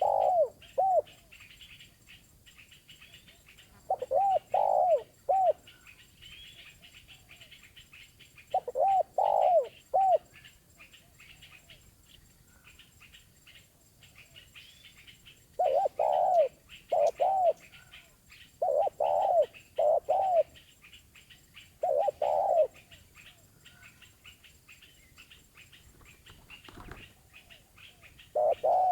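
Spotted dove (terkukur) cooing in short phrases of three to five arched coos, about six phrases with pauses of a few seconds between them. Small birds chirp faintly and continuously in the background.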